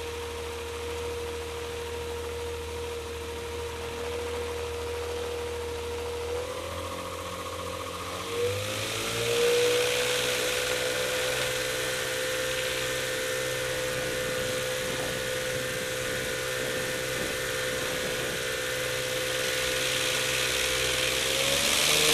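Avid light aircraft's engine and propeller running at low power while taxiing. The engine note steps up in pitch about six and a half and eight and a half seconds in, then holds steady with more hiss. It rises again near the end.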